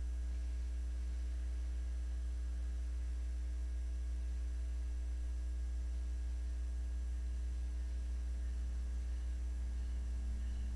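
Steady electrical mains hum, a low buzz with a ladder of even overtones, picked up on the rail camera's audio feed. A faint repeated high ringing comes in near the end.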